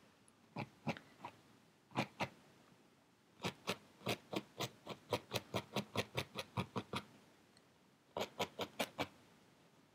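Felting needle stabbing repeatedly through wool into a foam felting pad: crisp pokes, a few at first, then a long even run of about five a second, then a short burst near the end.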